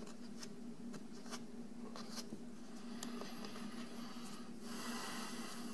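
Plastic Bondo spreader scraping spackle into a crack along a crown-molding joint: faint scratching with light ticks, and a longer scrape about five seconds in, over a steady low hum.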